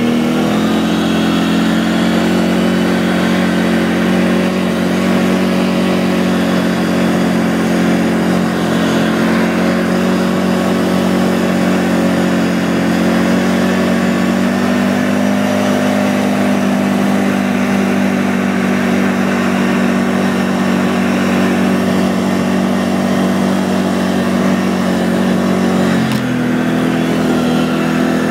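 Can-Am 800R ATV fitted with a rubber track kit, its V-twin engine running steadily under way. The engine note lifts slightly about halfway through and drops a couple of seconds before the end.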